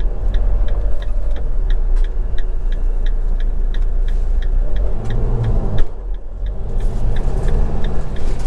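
Inside the cab of a Fiat Ducato-based motorhome on the move: the diesel engine and road rumble run steadily under an even ticking of the turn indicator, about four ticks a second. The engine pulls harder for a moment about five seconds in, then eases off.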